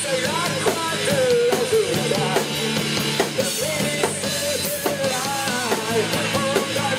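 Live rock band playing: drum kit, electric guitar and bass guitar, with a wavering, bending lead melody on top.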